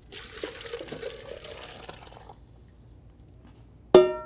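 Hot corn broth poured from a saucepan into a blender jar, splashing for about two seconds. Near the end comes one sharp metal clang that rings briefly.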